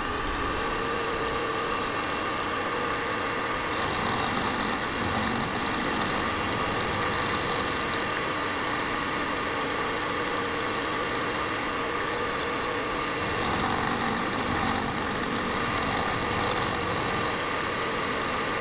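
Milling machine running with a 12 mm end mill cutting the edge of a metal flange held on a rotary table: a steady machining whine with a constant hiss.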